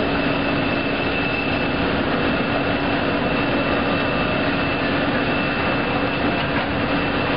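Gurki side-sealing and heat shrink tunnel packing line running: a steady machine rush with a constant low hum and a constant high whine.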